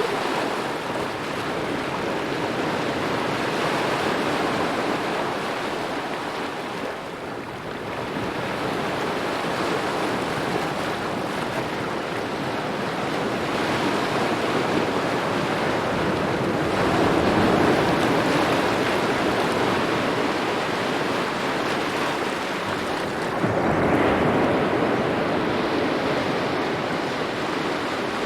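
Small ocean waves lapping at the shore: a continuous wash of water, swelling with each wave about 4, 17 and 24 seconds in and easing between.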